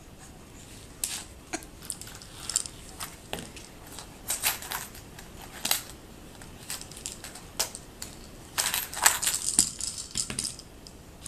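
Intermittent crinkling and light clicks of plastic as a baby handles plastic Easter eggs, with a denser run of crinkling about nine seconds in.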